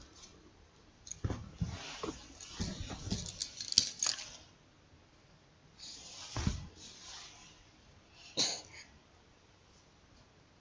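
Hands squishing and patting wet minced-meat mixture into balls: irregular soft squelches and pats with a few sharp clicks, most in the first four seconds, with a few more around six and eight and a half seconds.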